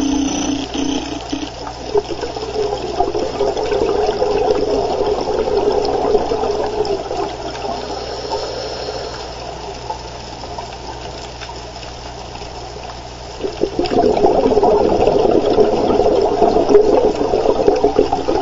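Scuba diver's exhaled air bubbling out of the regulator, heard underwater. It comes in two long stretches of bubbling, the second and louder one starting about thirteen seconds in.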